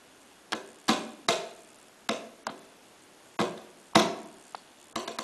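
Fingertips tapping on a mouse pad on a desk: single sharp taps at uneven intervals, some louder than others, each with a brief ringing tail, then a quicker run of taps starting near the end.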